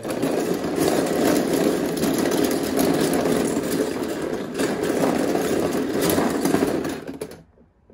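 A pile of plastic Beyblade Burst drivers stirred and shuffled by hand in a clear plastic stadium: a continuous dense clatter of small plastic parts that stops about seven seconds in.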